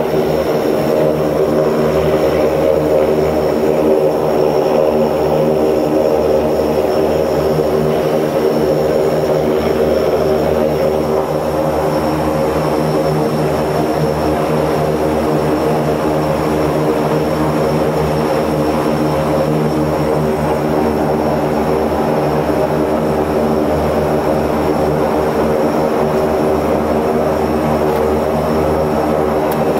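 The Antonov An-24B's two Ivchenko AI-24 turboprop engines run steadily as the aircraft taxis, heard from inside the cockpit. Their deep propeller drone carries a thin high turbine whine, and the level eases slightly about a third of the way through.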